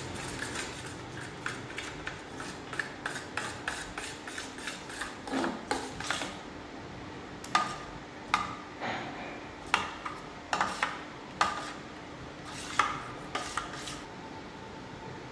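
Metal spoon stirring a liquid glucose and gelatin mixture in a stainless steel bowl, scraping and clinking against the bowl's sides in quick repeated strokes. The clinks grow louder and sharper in the second half and stop about a second before the end.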